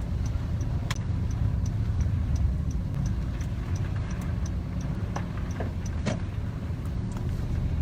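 Car cabin noise while driving: a steady low rumble of engine and road, with a faint high ticking about three times a second and a few light clicks.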